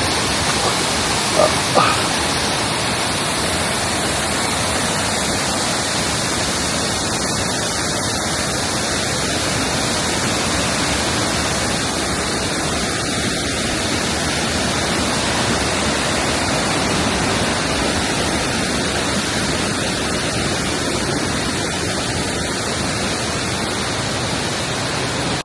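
A waterfall rushing close by: a loud, steady, even wash of falling water that does not change.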